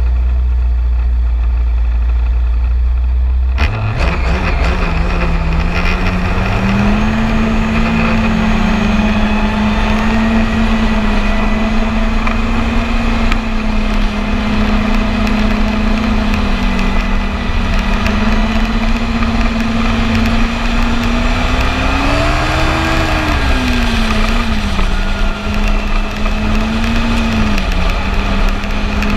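Yamaha Apex four-stroke snowmobile engine. At first it is only a low rumble; about four seconds in the throttle opens, the pitch climbs, and the sled pulls away. It then runs at a steady pitch while cruising, with a brief rise and fall in revs and a couple of small dips near the end.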